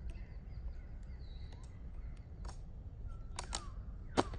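A few sharp snaps of rubber bands being stretched onto a watermelon, the loudest near the end, over a low steady background rumble with faint bird chirps.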